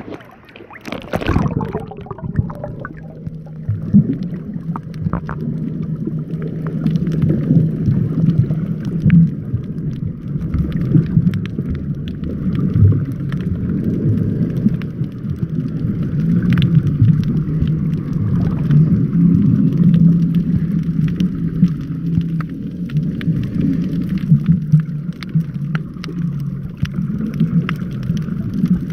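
An engine running steadily, with scattered clicks and rattles over it.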